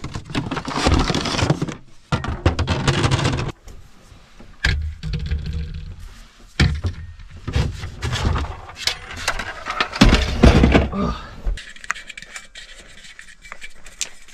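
Close, irregular bursts of scraping, rustling and knocking from a portable propane heater and a propane can being handled and fitted together, with sharp clicks among them.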